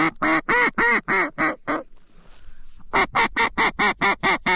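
Mallard duck call blown in loud quacking runs: about eight evenly spaced quacks, a short pause, then a faster run of shorter quacks starting about three seconds in, calling to ducks over the decoys.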